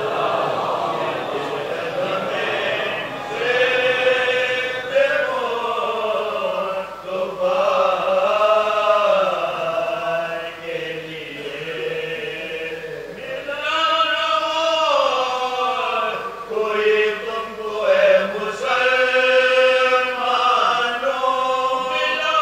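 Men's voices chanting a marsiya, an Urdu elegy, together in long, slowly gliding melodic phrases, unaccompanied.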